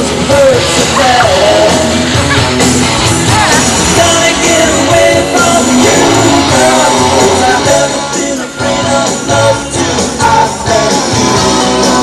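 Music with a singing voice, loud and continuous.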